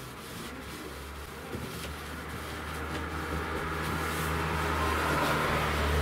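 A motor vehicle approaching, its low engine hum starting about a second in and growing steadily louder.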